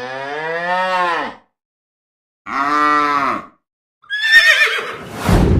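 A cow mooing twice, each moo about a second long, rising and falling in pitch. About four seconds in, a horse starts whinnying with a high, quavering call that falls away.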